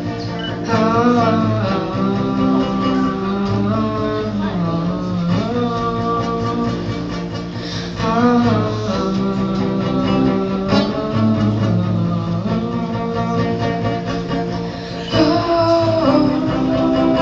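Acoustic guitar strummed with a man singing over it, a solo live performance, getting louder about fifteen seconds in.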